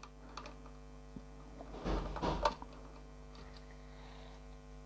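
Alligator-clip leads being handled and clipped onto an amplifier's speaker terminals: a rustle ending in a sharp click about two and a half seconds in, over a faint steady mains hum.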